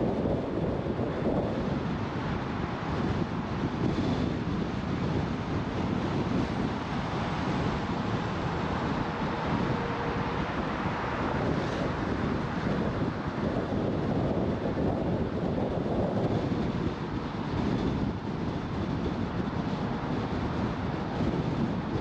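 Car driving, with steady road and tyre noise and wind buffeting the microphone.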